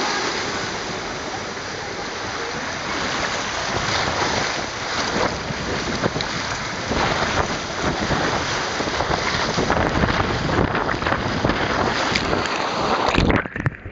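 Rushing water and wind buffeting the microphone during a ride down a water slide: a steady loud rush that breaks up into a few abrupt jolts and drop-outs near the end.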